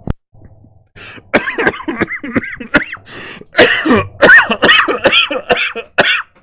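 A man in a long fit of hard coughing: a rapid string of loud coughs and throat-clearing that starts about a second in and stops just before the end.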